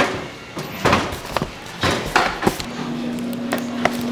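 Irregular sharp knocks and chopping strikes on a hard work surface, about half a dozen in the first two and a half seconds. A steady low hum sets in about two-thirds of the way through.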